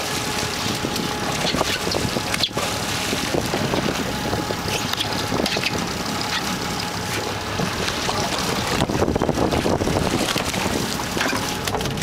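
Wind buffeting the microphone over the steady noise of a sport-fishing boat under way, with water washing and splashing alongside as a hooked dorado thrashes at the surface.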